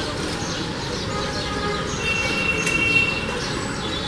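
House sparrows chirping in a tree, many short, quick chirps, over a steady low rumble. A few held, whistle-like notes sound in the middle of the stretch.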